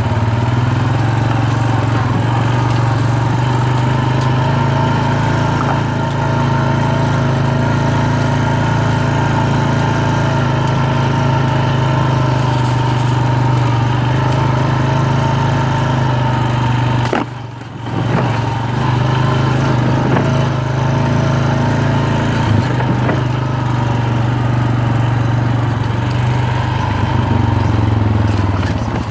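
ATV engine running steadily as the quad rides along. The hum holds an even pitch and drops out briefly about two-thirds of the way through.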